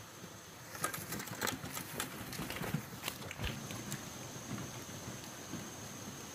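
A quick run of hard knocks and clatters that starts about a second in and lasts some three seconds, then gives way to a quieter steady rustle.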